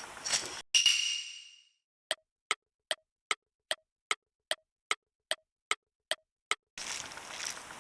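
Sound effect of a single bell-like ding ringing out, followed by a clock ticking steadily, about two and a half ticks a second, twelve ticks in all, over dead silence.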